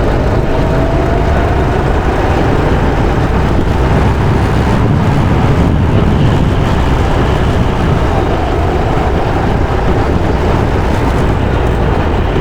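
Go-kart engine running on the track under a loud, steady rushing wind noise, its pitch rising and falling gently.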